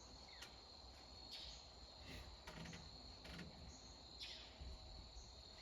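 Faint outdoor ambience: insects trilling steadily at one high pitch, with a few short bird chirps scattered through it.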